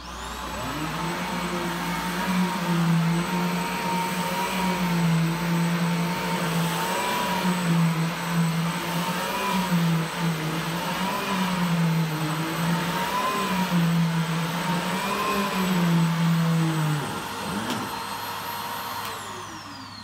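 Simplicity S40P upright vacuum cleaner running on carpet: its motor starts up with a steady high whine, and the hum wavers regularly in pitch as it is pushed back and forth picking up debris. Near the end it is switched off and the whine falls away as the motor winds down.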